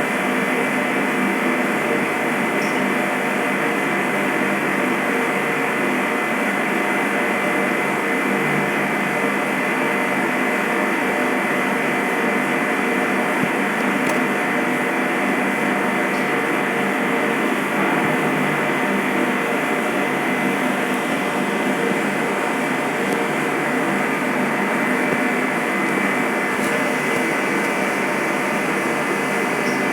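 Steady airplane engine drone: a dense, even noise with several held hum tones and no change in level.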